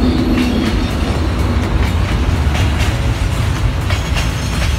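Model freight train rolling past close by: a steady low rumble of the motor and wheels on the track, with irregular clicks as the wheels cross the rail joints.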